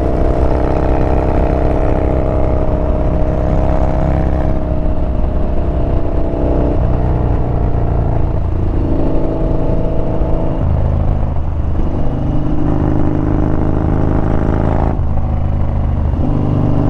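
Yamaha Bolt's air-cooled V-twin engine running under way, its note shifting up and down in steps several times, around 7, 10 and 15 seconds in, as speed and throttle change.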